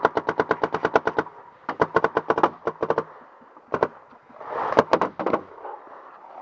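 Dye M2 electronic paintball marker firing in rapid strings: a fast string of about a dozen shots a second for just over a second, a shorter burst soon after, then a few spaced single shots. Near the end a few more shots come with a rustling scuffle of movement.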